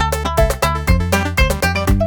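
Upbeat background music with a steady beat and strong bass, over the end of the video.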